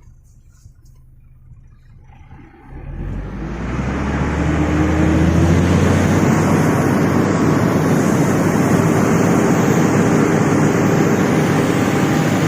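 Iveco tractor unit's diesel engine, from a low hum to hard acceleration about two and a half seconds in, then running loud and steady under load as it hauls a loaded trailer.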